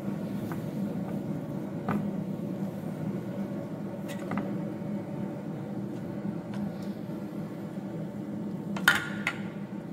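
A metal spoon clinks twice against a stainless steel bowl of batter about nine seconds in, with a short ring. Before that there are a few light clicks over a steady low background hum.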